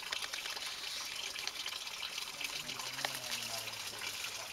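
Grass and dry leaves rustling and crackling steadily, with many small clicks.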